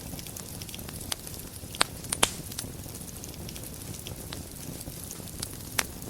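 Wood fire burning in a fireplace: a steady low rumble and hiss with scattered crackles, and a few sharper pops, loudest about two seconds in and again near the end.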